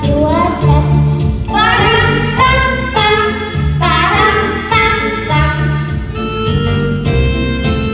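A voice singing a children's song about autumn over a backing track, with a steady pulsing bass beat.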